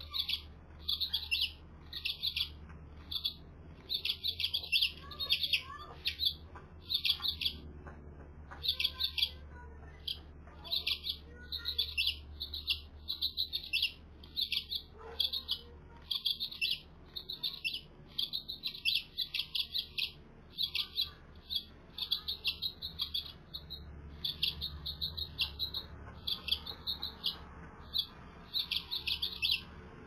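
House finch begging chirps at the nest: quick high chirps in short bursts, about two bursts a second, kept up without a break while the male feeds the female on the nest. A faint steady low hum lies underneath.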